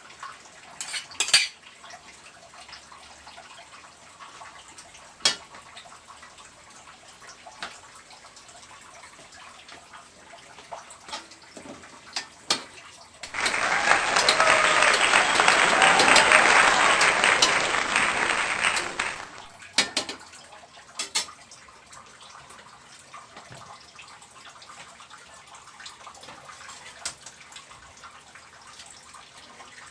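Kitchen cooking sounds: scattered clinks and taps of utensils against pans and dishes, with a loud steady rushing hiss for about six seconds midway that starts and stops abruptly.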